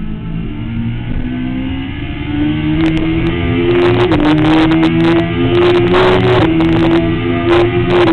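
Sport motorcycle engine pulling hard out of a corner, its pitch rising, with a quick gear change about four seconds in before it runs on at high revs. Gusts of wind buffet the onboard microphone at speed.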